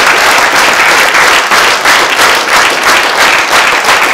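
Large audience applauding loudly at the close of a speech.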